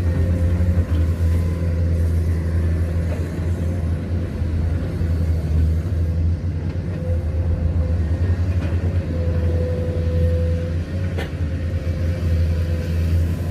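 Excavator engine running with a steady low rumble while digging soil, with a single sharp knock about eleven seconds in.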